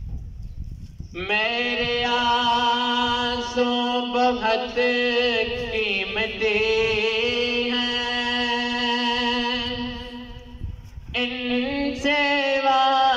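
A man's solo voice singing a naat unaccompanied, drawing out long, ornamented held notes with a wavering pitch; the line breaks off briefly near the end and a new phrase begins.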